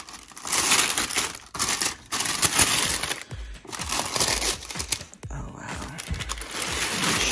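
Wrapping tissue paper in a shoebox being pulled back and folded aside by hand, rustling and crinkling in irregular bursts.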